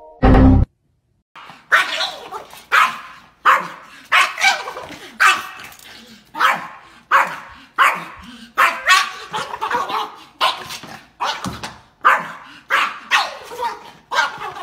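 Small long-haired dog barking repeatedly in sharp, separate barks, one to two a second, alerting at a squirrel on the other side of a glass door. A brief loud burst comes at the very start, before the barking begins.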